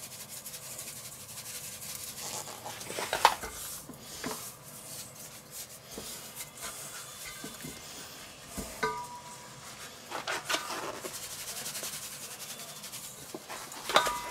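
Nitrile-gloved hands rubbing dry spice rub into raw chicken legs in a stainless steel bowl, with a few short rustles of the paper spice bag and light knocks against the bowl.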